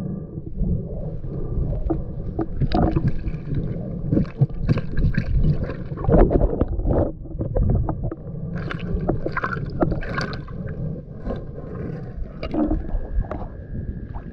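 Water sloshing and gurgling with a muffled low rumble, the handling noise of snorkelling in a shallow river, broken by many scattered clicks and knocks. A faint steady tone comes in near the end.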